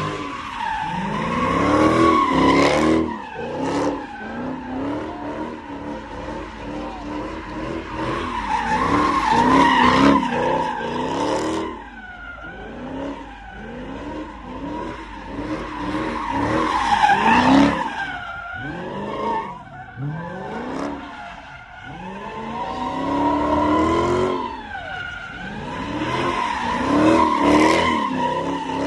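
A muscle car's V8 engine revving hard in repeated surges while it spins donuts, its tires screeching steadily against the pavement. The revs rise and fall in several waves, the loudest bursts coming every several seconds.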